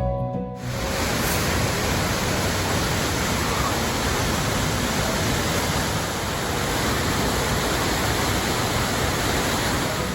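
Steady rush of falling water from a waterfall, an even hiss-like noise that cuts in abruptly about half a second in.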